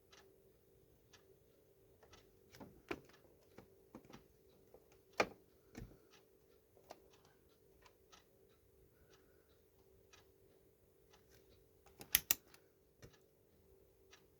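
Scattered small clicks and taps of multimeter test probes and leads being handled and placed, with a quick cluster of three sharper clicks about twelve seconds in, over a faint steady hum.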